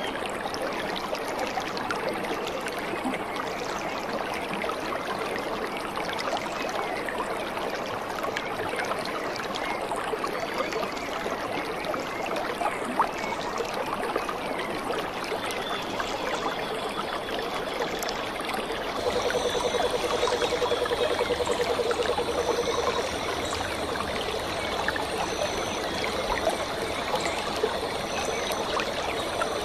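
Rushing water of a waterfall and rocky stream, a steady hiss. About halfway through a thin, steady high whine joins in, with short chirps repeating above it.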